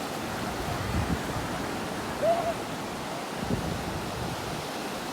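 Sea waves washing in the shallows, a steady rush with a few louder surges. A brief tone that rises and falls sounds once, about two seconds in.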